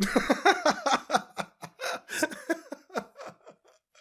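A cartoon bear character laughing: a long run of short, falling "ha" bursts that thins out near the end.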